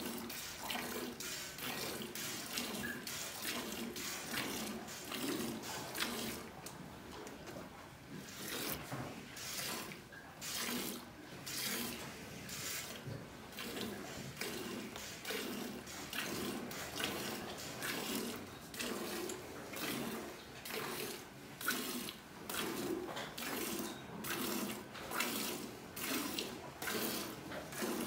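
Cow being milked by hand: streams of milk squirting into a pail in a regular rhythm of squirts, one after another.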